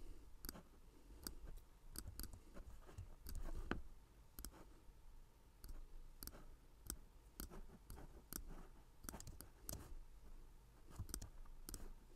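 Computer mouse clicking: quiet, sharp clicks at an irregular pace, sometimes two or three in quick succession, as anchor points are placed with the pen tool.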